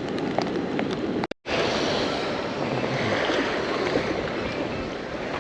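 Steady rush of wind and waves at the water's edge, broken by a moment of silence about a second and a half in.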